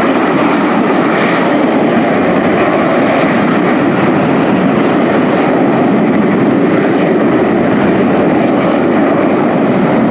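A formation of Aermacchi MB-339 jet trainers climbing away just after takeoff, their Rolls-Royce Viper turbojets giving a loud, steady rushing noise.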